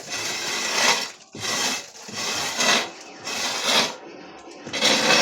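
Rhythmic scraping strokes, about one a second, each a harsh rasp that swells and fades.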